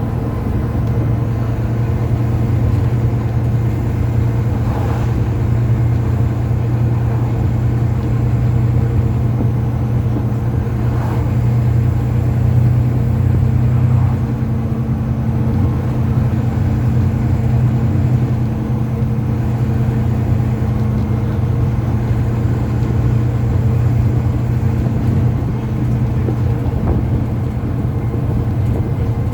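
Volvo B9TL double-decker bus's six-cylinder diesel engine running under way, heard from inside the bus: a steady low drone over road noise, with a few faint rattles.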